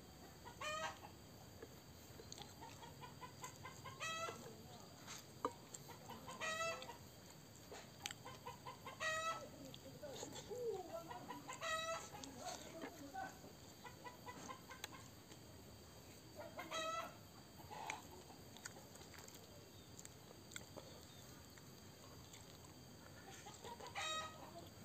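A chicken cackling: runs of quick clucks build into a louder, wavering squawk, about seven times over. There is a single sharp click about five seconds in.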